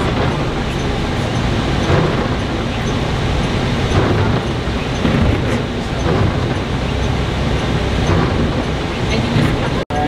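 Steady rumble of a moving motor coach heard from inside its cabin, engine and road noise together. It cuts out for an instant near the end.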